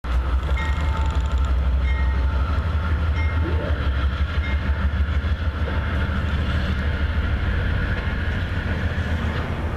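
Amtrak GE P42DC diesel locomotive and its passenger coaches pulling out: a loud, steady low rumble of the V16 diesel working, mixed with the rolling of the cars, easing a little near the end.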